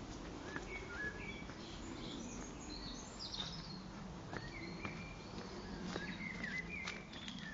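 Small birds chirping in short, scattered calls over a steady low background rumble, with a few light clicks.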